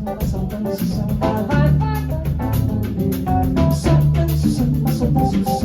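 Instrumental band music with a drum kit keeping a steady beat under bass and plucked guitar, in a jazzy style.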